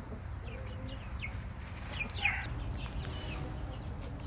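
Chickens clucking softly, with a scatter of short chirps that fall in pitch, over a steady low rumble.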